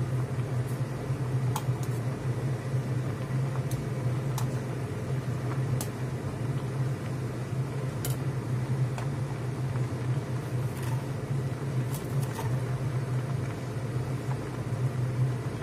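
Soup bubbling at a rolling boil in a steel pot, with scattered sharp pops from bursting bubbles, over a steady low hum.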